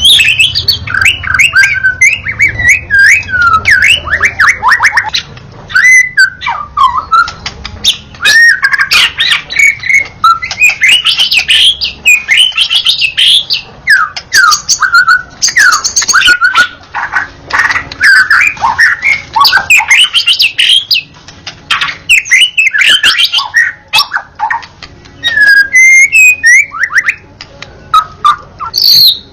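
White-rumped shama singing without pause: a fast, varied stream of loud whistles, slurred glides and chirps, broken only by a few brief lulls.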